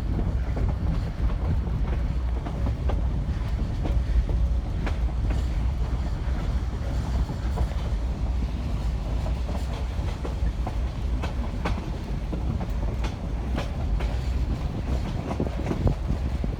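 Passenger train rolling along the track, heard from aboard: a steady low rumble with irregular clicks of the wheels over the rails.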